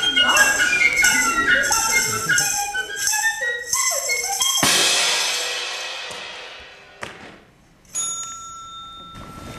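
Live stage-show music: a short melody of pitched notes stepping mostly downward, ending about halfway with a crash that rings out and fades over about two seconds. Near the end, after a click, a single clear high ringing tone is held for about two seconds.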